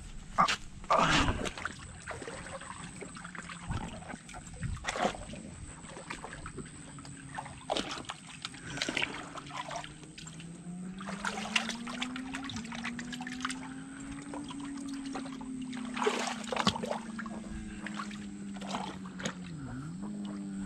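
Water in a concrete irrigation canal splashing and trickling in scattered bursts as feet are washed in it. From about halfway in, a steady motor hum joins, rising a little in pitch and then falling.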